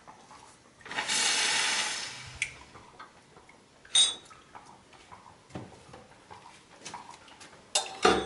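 Short hiss of steam from the Astoria Rapallo espresso machine's steam wand being purged, about a second in, followed by light clinks and a sharp metallic clank of steel jugs and cups against the machine's drip tray and steel.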